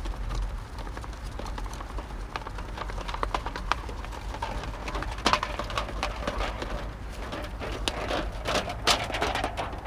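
Thin titanium stove pipe sheet being rolled into a tube by gloved hands on a plywood surface: irregular metallic ticks, crinkling and scraping. The clicks get sharper about five seconds in and come thick and fast near the end.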